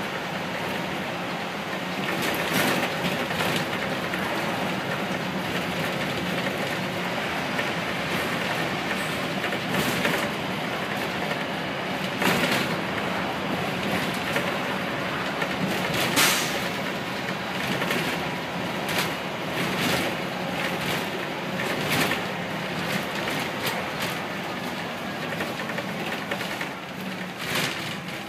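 Cabin noise of a Leyland National Mark 1 single-deck bus on the move: its diesel engine runs steadily, with sharp knocks and rattles from the body every few seconds.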